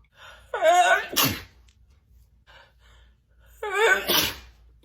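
A woman sneezing twice during a sneezing fit, about three seconds apart: each sneeze is a voiced 'ah' breaking into a sharp, spraying 'choo', with faint catching breaths before each.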